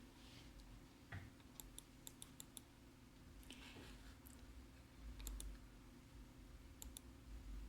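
Near silence: room tone with scattered faint clicks, a quick run of them about two seconds in and a few more near the end.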